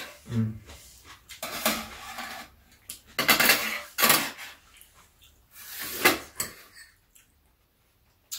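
Eating sounds: metal spoons and chopsticks clinking and scraping against ceramic soup and rice bowls, in several loud spells with short gaps between them. The sound dies away about seven seconds in.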